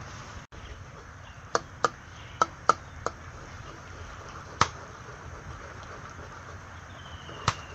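A metal spatula clinks sharply against an iron wok (karahi) while stirring eggs into a simmering curry: a quick run of four or five clinks a second or two in, then single clinks at longer gaps. A steady sizzle of the cooking food runs underneath.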